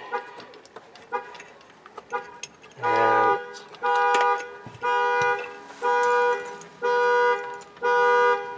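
Truck horn honking in alarm mode from the key fob's panic button: loud blasts about half a second long, repeating about once a second, starting about three seconds in after a few faint short beeps.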